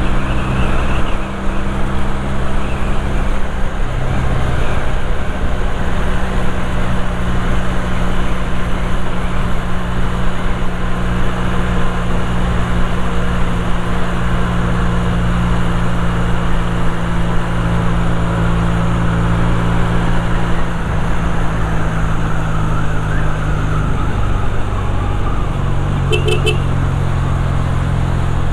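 Honda motorcycle engine running steadily under way, with wind and road noise, its note shifting a couple of times as the rider changes speed and gear. Three quick beeps sound near the end.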